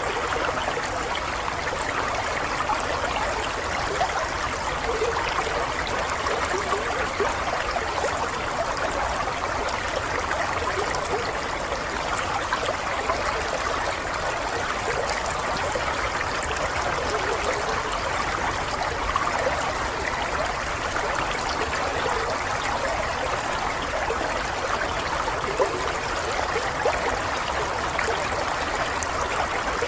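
Running water flowing steadily and without a break, with a trickling, stream-like sound.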